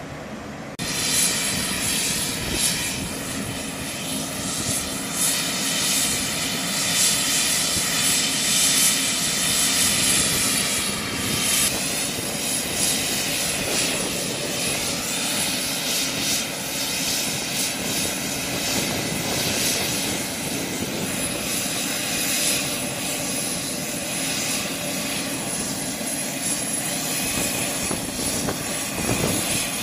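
Turboprop engines of a C-130J Super Hercules running on the ramp: a loud, steady rushing drone with a constant high whine, starting just under a second in.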